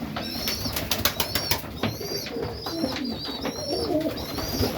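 Serbian highflyer pigeons cooing in a loft, with repeated high squeaks and a quick run of sharp taps about a second in.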